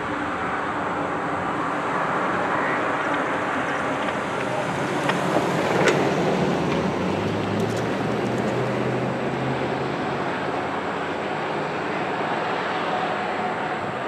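Steady rumble of an intermodal freight train's cars rolling on the rails, mixed with a car passing on the road alongside. A few sharp clanks come about five to six seconds in, and a low engine hum follows for a few seconds.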